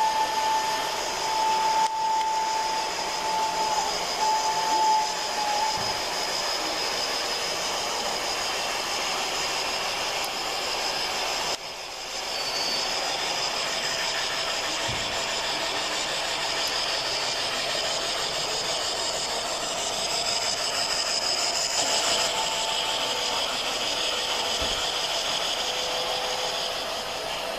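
Gauge 1 model narrow-gauge steam train running on a layout: a steady hissing noise, with a held high tone over the first five seconds or so.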